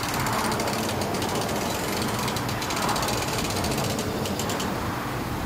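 Rapid mechanical clicking over a steady low hum.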